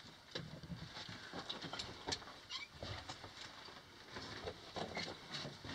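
Footsteps crunching on a floor of loose rock and gravel in a narrow mine tunnel: faint, irregular short crunches.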